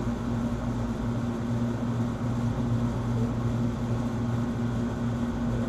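Steady low machine hum, unchanging throughout.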